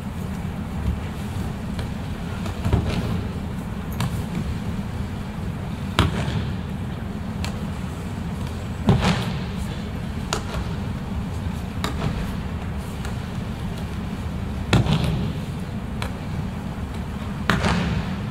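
Aikido breakfalls on tatami mats: a series of sharp slaps and thuds, about every two seconds, as thrown attackers hit the mat, the loudest near the middle and near the end. A steady low hum of a large hall runs beneath.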